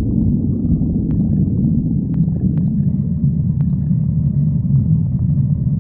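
A person's stomach growling: a continuous low rumble, with a few faint clicks over it.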